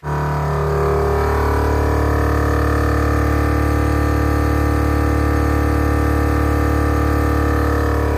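Air-ride compressor switching on abruptly and running with a steady hum, pumping up the air-suspension tank toward its 175 PSI pressure-switch cut-off.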